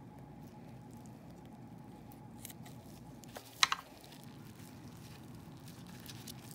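Metal scissors set down on a paper towel over a tray, giving one sharp double clack about halfway through. Around it, faint soft handling of a raw chicken leg over a steady low room hum.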